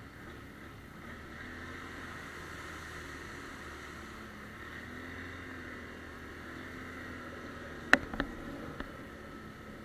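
ATV engine running steadily while riding, with three sharp knocks close together about eight seconds in.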